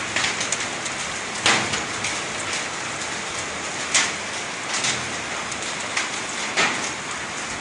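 Mud rain mixed with sand and small stones from the Taal volcano eruption, falling in a steady patter, with sharper, louder hits every second or so.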